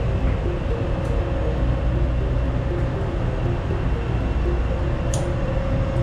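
Steady, loud machinery drone of a ship's main switchboard room, with a constant hum tone running through it and quiet background music underneath. A brief click about five seconds in.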